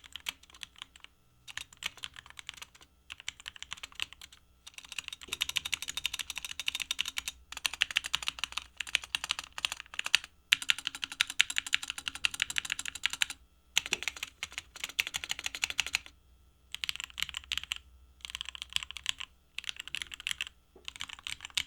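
Typing on the Munfrost Deimos mechanical keyboard with Gateron switches: fast runs of key clacks broken by short pauses, heard as a keyboard sound test.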